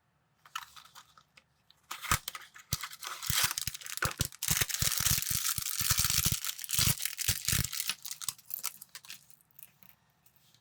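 Plastic parts bag of building bricks being torn open and crinkled, with many small sharp clicks through the rustling; it builds up over the first two seconds, is densest in the middle and dies away near the end.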